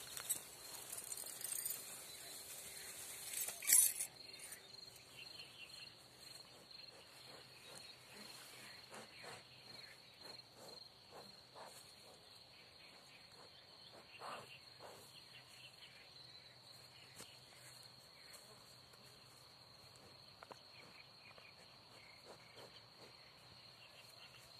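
A steady, high-pitched insect trill runs throughout, with soft rustling over it in the first few seconds. A single sharp knock comes about four seconds in.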